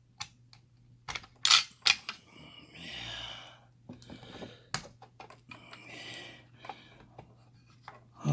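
Small sharp metal clicks and taps as a padlock and its picking tools are handled, with soft rustling between them.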